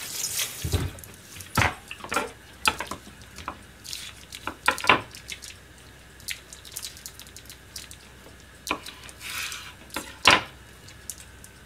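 Kitchen handling noise at a steel sink counter: scattered clicks and knocks of a knife, bowls and utensils on a wooden cutting board, the sharpest knock about ten seconds in. There are short bursts of running water near the start and about nine seconds in.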